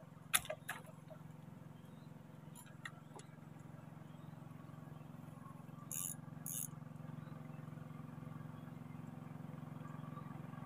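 Fishing tackle being handled in a wooden canoe: a few sharp clicks in the first second, faint ticks around three seconds in, and two short hissy scrapes about six seconds in, over a steady low hum.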